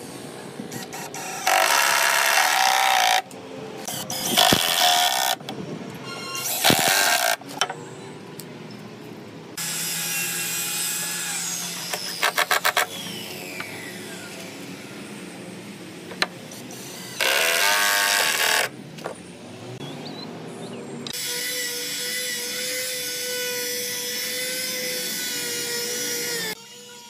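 Red 12V cordless drill boring into a hardwood frame in repeated bursts of a second or two each. In the last few seconds a small electric hand sander runs steadily over a wooden top.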